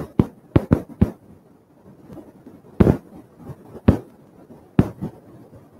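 A series of irregular sharp thumps and pops. Several come close together in the first second, then single ones about a second apart.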